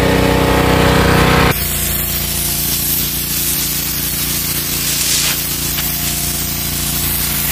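Petrol pressure washer's 223 cc engine running. About a second and a half in, the gun is triggered and the red straight-jet nozzle's pressurised water hisses steadily against wet asphalt, with the engine going on underneath.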